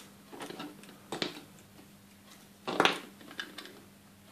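Small hard plastic parts of a Playmobil toy bed clicking and knocking as they are pushed together: a handful of light clicks, the loudest about three seconds in.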